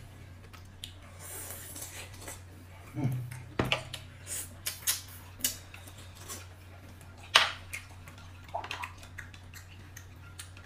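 Tableware clinking during a meal: a metal spoon stirring and tapping in a glass bowl, with chopsticks on a plate, as scattered sharp clicks, the loudest about seven seconds in. A steady low hum runs underneath.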